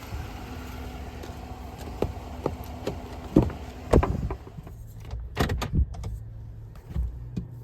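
Clicks, knocks and door thumps from handling a car or truck, with a steady engine hum underneath. About four seconds in, the background hiss drops away, as when a door shuts.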